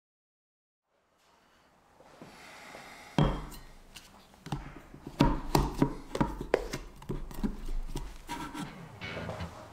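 A faint hiss fades in, then irregular sharp knocks and clicks follow one another over a low rumble, like gear or objects being handled.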